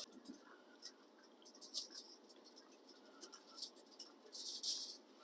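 Small scattered clicks and scrapes of hands working food on a metal prep surface, then a brief crinkle of aluminium foil over four seconds in as a ground-beef patty is set down on it.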